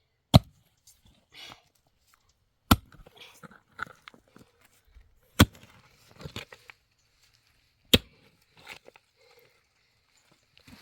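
Chopping: four heavy, sharp blows about two and a half seconds apart, with lighter knocks and shuffling between them.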